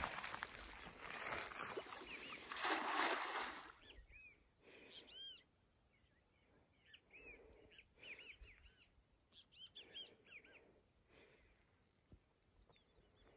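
A cast net thrown out and landing on the water with a splashing rush, loudest about three seconds in. After that, birds call with short, repeated chirps.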